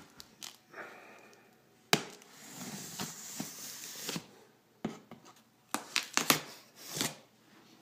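A knife cutting packing tape on a cardboard box: a sharp snap, then a long scraping rip along the seam, followed by a string of short scrapes and knocks on the cardboard.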